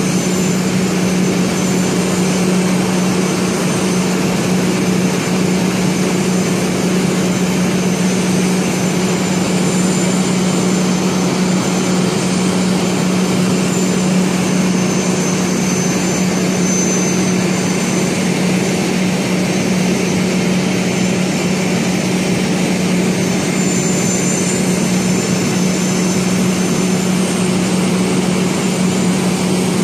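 A steady, unchanging mechanical drone: a strong low hum with a hiss over it.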